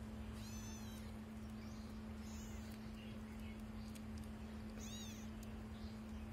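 Young kittens mewing in high, thin calls: a clear one near the start and another about five seconds in, with fainter mews between. A steady low hum runs underneath.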